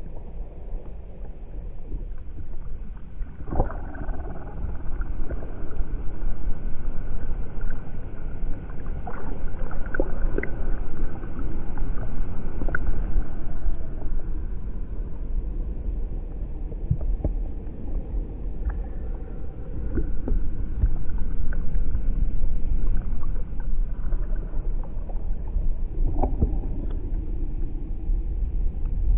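Ocean soundscape: a deep, steady rumble of moving sea water, swelling and easing, scattered with brief high squeaks and a few short wavering glides.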